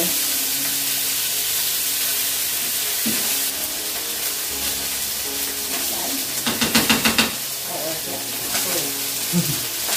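Thin beefsteak frying in a pan of hot oil, a steady sizzle. About six and a half seconds in comes a quick run of sharp clicks.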